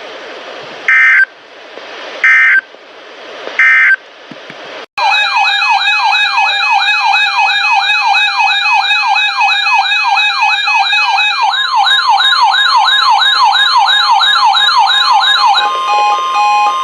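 Three short bursts of the warbling digital data tones of an Emergency Alert System (SAME) header, each about a second apart. A loud electronic siren follows, wailing rapidly up and down. Near the end the siren stops and a steady single alert tone holds on.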